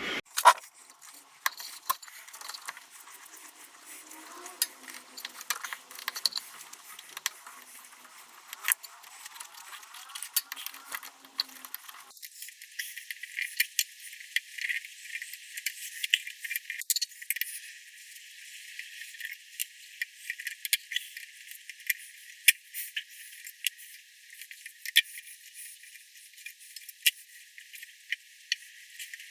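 Irregular small metal clicks and clinks of a hand tool working the blade-clamp bolts on a Triton thickness planer's cutter head, loosening them to free the blade. About twelve seconds in, the sound turns thin and tinny, its low end gone.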